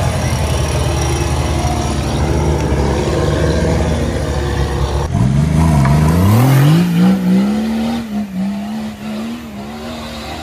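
An off-road vehicle's engine running hard at low, steady revs. About five seconds in, the sound changes abruptly to a tube-frame buggy's engine revving up steeply and holding high revs with small dips as it climbs a steep dirt hill, growing fainter as it pulls away.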